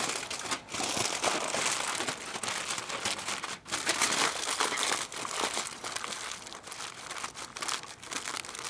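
Thick aluminium foil crinkling and crackling as it is folded and pressed tightly around a slab of beef ribs by gloved hands, with brief pauses between handfuls.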